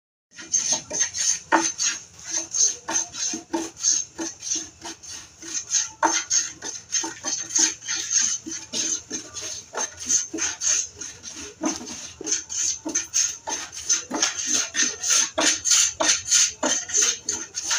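Carpenter's hand plane shaving the edge of a hardwood bed panel in quick, short strokes, a rasping 'khos khos' swish about three times a second.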